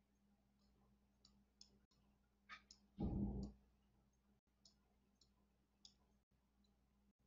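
Near silence broken by faint scattered clicks, with one louder, brief low thud about three seconds in.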